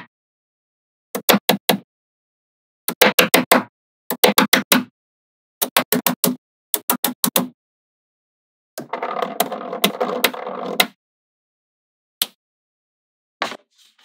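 Small magnetic balls snapping together in quick clusters of sharp clicks, a few in each burst, with dead silence between bursts. About nine seconds in there is a rattling stretch of about two seconds as a handful of balls click and clatter against each other, then two single clicks near the end.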